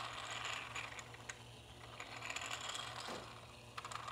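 3D-printed plastic model of a Toyota 22RE inline-four engine turning over: its plastic gears, pistons and valve train click and rattle faintly, swelling and fading roughly every couple of seconds, over a steady low hum.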